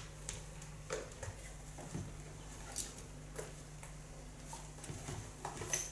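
Scattered light knocks and taps, one every half second to a second, over a steady low hum.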